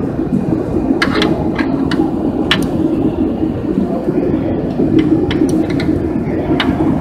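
Steady low mechanical rumble throughout. Over it come a few sharp metallic clicks, spaced a second or more apart, from a ratchet wrench turning the adjusting bolt of a heavy-truck clutch inside the bell housing.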